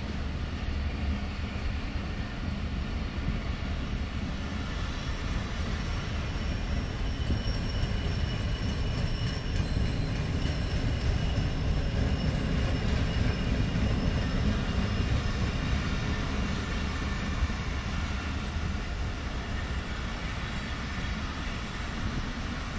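Passenger train coaches rolling past, their wheels running on the rails with a steady low rumble. A faint high whine comes and goes in the middle.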